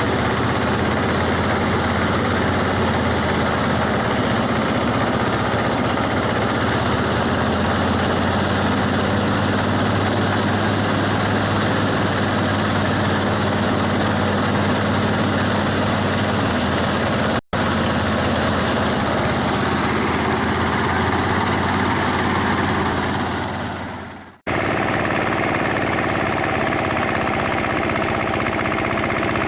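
Engine-driven rice thresher running steadily with a constant hum. The sound drops out for an instant twice, the second time after fading down over about a second.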